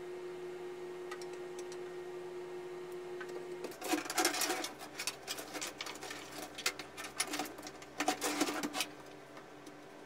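Power supply unit being slid and fitted into a steel PC case: a run of rattling clicks and scrapes from about four seconds in until near the end, over a steady hum.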